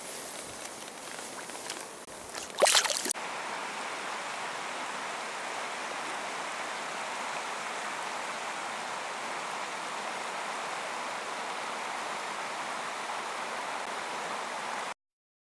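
Steady rush of flowing river water. About three seconds in there is a brief loud burst of noise, and the water sound cuts off suddenly near the end.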